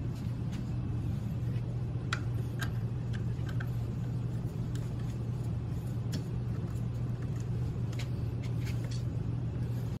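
A steady low machine hum throughout, with scattered light clicks and taps as a wooden hand knob is handled and threaded onto a steel bolt on a plywood camera arm.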